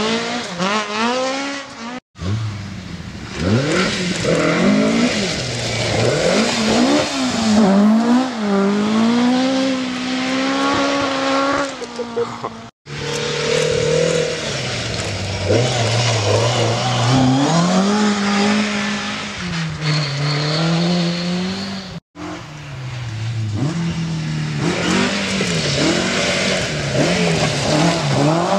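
Ford Escort Mk1 and Mk2 rally cars at full rally pace on a stage, in several short passes. The engines rise and fall in pitch through hard revving and gear changes, over a steady haze of road noise.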